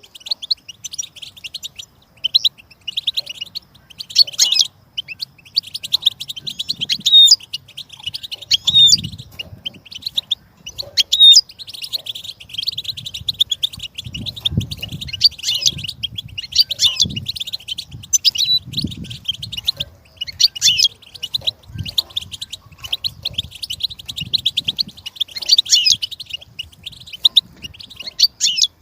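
Goldfinch singing: a fast, continuous twittering of rapid high chirps and trills in long runs broken by brief pauses, with faint low rumbles underneath.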